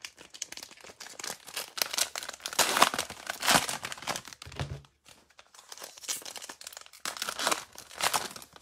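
Plastic and foil wrapper of a Panini Prizm basketball card pack being torn open and crinkled by hand, in irregular bursts of crackling with a brief lull about halfway through.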